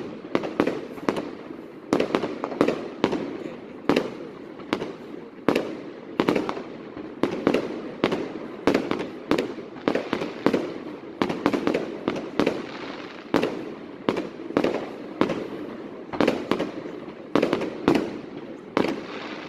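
Fireworks display: a rapid barrage of shell bursts, two or three sharp bangs a second, each trailing off in an echoing rumble.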